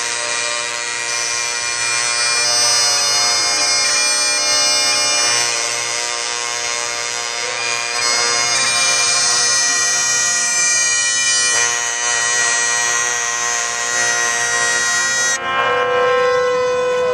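Music on a droning reed instrument: a steady drone held under a slow melody whose notes change every few seconds, cutting off abruptly at the very end.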